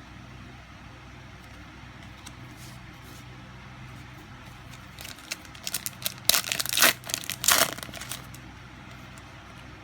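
Booster-pack wrapper crinkling and tearing as a trading-card pack is ripped open: a flurry of sharp crackles for about three seconds past the middle. A faint steady low hum runs underneath.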